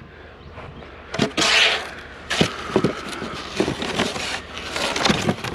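Rummaging through a curbside pile of discarded items: rustling and a series of irregular knocks and clatters as things are shifted and handled.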